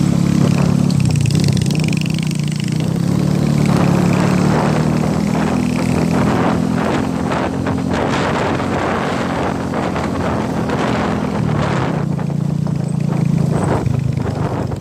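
A motor vehicle's engine running steadily, its pitch dipping and rising a little as the speed changes, with a rushing noise over it.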